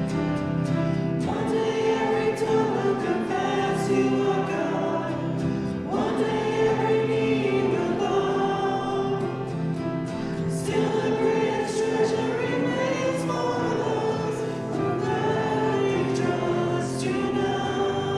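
Many voices singing a hymn together, with instruments accompanying.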